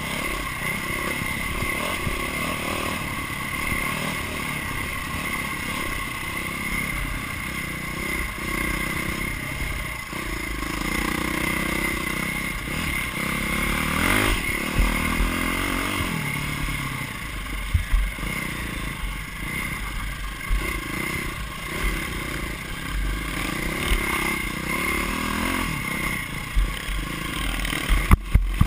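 Off-road motorcycle engine running hard under load, heard from onboard, its revs rising and falling, with the clatter of the bike over rough ground. A few sharp knocks stand out, the loudest near the end.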